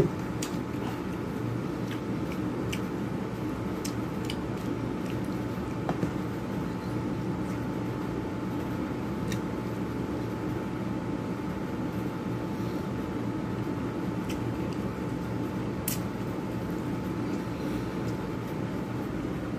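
Eating sounds: a metal spoon now and then clicking and scraping against an aluminium foil food tray, with chewing, over a steady low hum.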